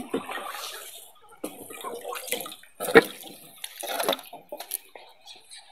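Water splashing and sloshing in irregular bursts around a small wooden canoe, with one sharp knock about three seconds in.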